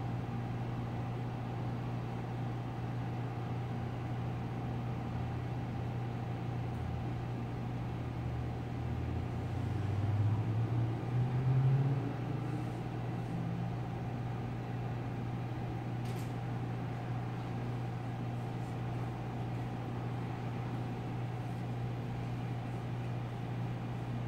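Steady low machine hum, briefly louder about ten seconds in with a low drone that rises in pitch.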